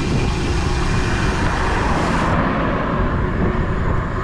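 Wind rushing over a GoPro Hero 9's microphone on a moving bicycle, a steady, gusty low rush, mixed with road traffic noise.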